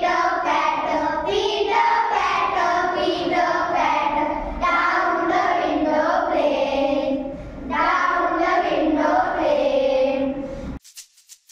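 A group of schoolchildren singing a rhyme together in unison. The singing cuts off suddenly about a second before the end, followed by the first rattling ticks of shaker music.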